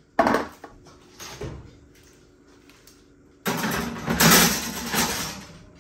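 A sharp knock near the start, then a baking dish sliding into an oven on its wire rack, a noisy sliding rattle lasting about two seconds.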